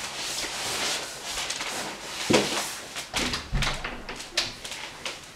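A scuffle on a floor: rustling and shuffling, with several thuds and knocks, the loudest a little over two seconds in.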